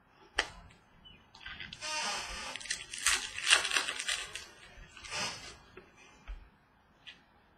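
Trading cards and their packaging being handled: a sharp click, then a couple of seconds of dense rustling and sliding, and another short rustle a little later.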